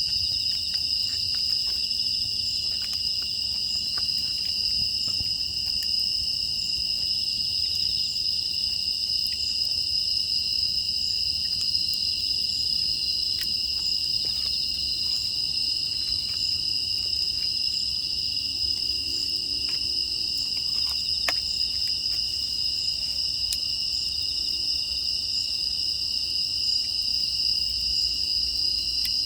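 Steady chorus of crickets and other grass insects, a continuous high-pitched shrill that does not let up, with faint scattered crackles from a wood fire beneath it.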